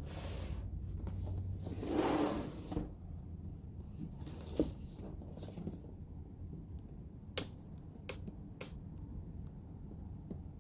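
Handling noise: rustling and scraping in the first few seconds, then three short sharp clicks near the end.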